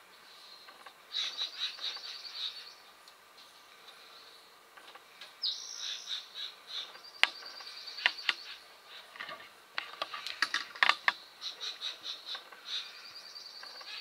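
Bird song outdoors: runs of fast repeated high notes, heard three times, with a scatter of sharp taps. The loudest tap comes about seven seconds in, and a quick cluster of taps follows near the eleven-second mark.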